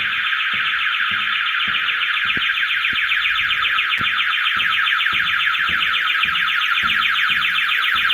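Building alarm sounder going off continuously: a loud, fast-warbling electronic tone that holds steady without a break, the alarm tripped by intruders.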